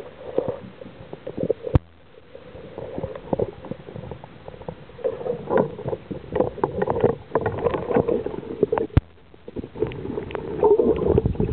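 Underwater sound heard through the housing of a camera mounted on a speargun: irregular swishing and crackling of water as the diver moves, with two sharp clicks, one about two seconds in and one about nine seconds in.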